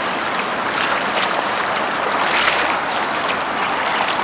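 Steady rushing of shallow river water around a wading man's legs, with a brief louder splashing swell about two seconds in.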